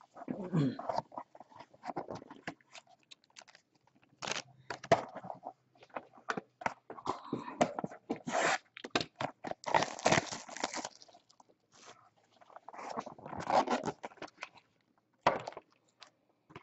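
Plastic wrapping and foil trading-card packs crinkling and rustling as they are handled, with clicks and scrapes of card boxes, in irregular bursts that are loudest about ten seconds in.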